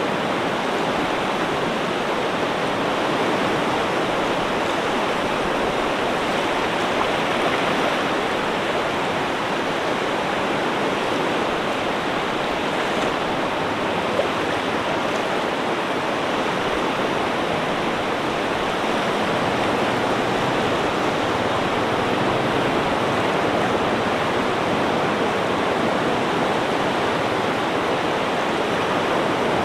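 Ocean surf as a steady, continuous rush of water, with no distinct swells or breaks.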